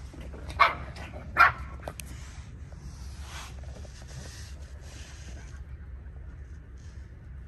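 Chow chow puppy giving two short barks about a second apart, near the start.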